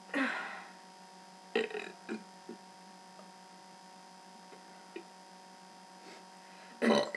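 A few short burps forced out one at a time: one right at the start, another about a second and a half later, and a stronger one near the end, over a steady electrical hum.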